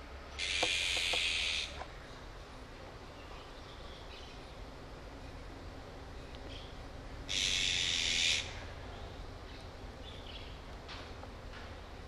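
Azure-winged magpies giving two long, harsh scolding calls, about six seconds apart. The birds are agitated, apparently over a chick that has fallen into the shrubbery.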